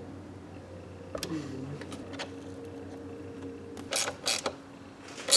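Plastic instrument-cluster parts being handled: a short creak a little over a second in, then a few clicks, the last one sharp and loud near the end, over a steady low hum.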